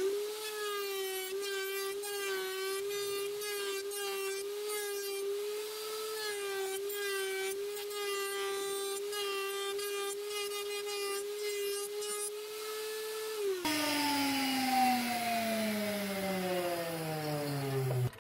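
Table-mounted wood router running at full speed as a wooden piece held in a jig is pushed past the bit, its steady whine dipping slightly as it cuts into the wood. About thirteen and a half seconds in it is switched off, and the whine falls steadily in pitch as the bit spins down.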